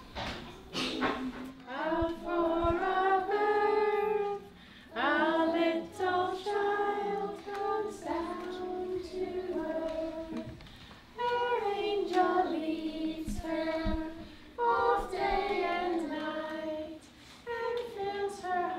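A woman and children singing a gentle song together, in phrases a few seconds long with short pauses between them.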